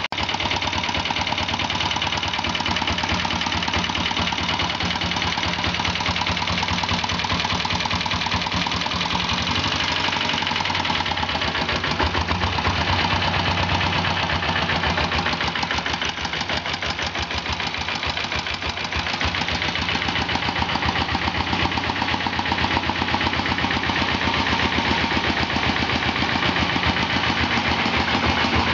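Single-cylinder air-cooled diesel engine of a Royal Enfield Bullet converted to diesel, running steadily at idle with an even, rapid beat of firing strokes. It dips a little in loudness around the middle, then comes back up.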